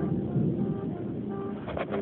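Steady hum of a vehicle engine holding one pitch, over a rushing background.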